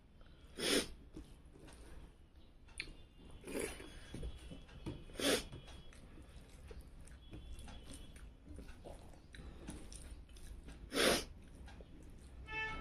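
A person chewing rice and fried fish eaten by hand: soft chewing and mouth sounds, with four short, louder mouth sounds spread through.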